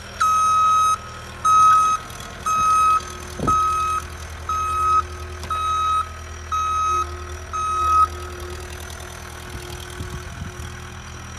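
Skid steer's reversing alarm beeping about once a second over its running diesel engine as the machine backs up; the beeping stops about eight seconds in while the engine keeps running.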